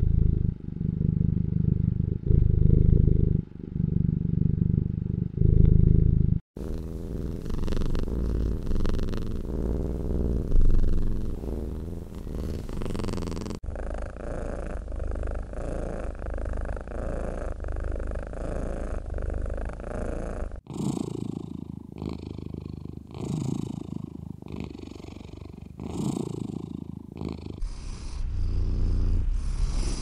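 Domestic cats purring close up: a low rumble that swells and eases with each breath, in several separate recordings that change abruptly about every seven seconds.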